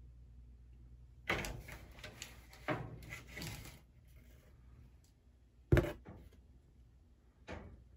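Plastic fan panel and its cardboard box being handled: scraping and rattling for about two and a half seconds, then a sharp knock about three quarters of the way in and a lighter knock near the end.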